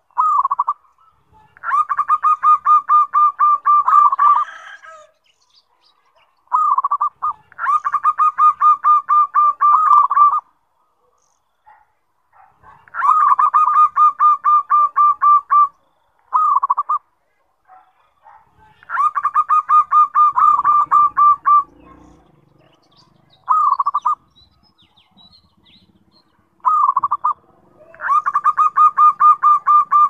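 Zebra dove (perkutut) singing loudly: a song phrase repeated about every five to six seconds, each a short opening coo followed by a fast, even run of coos lasting two to three seconds.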